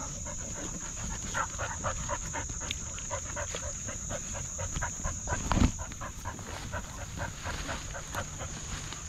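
Dog panting fast and close, heard through a camera on its harness, with a steady high insect drone behind it and one low thump about five and a half seconds in.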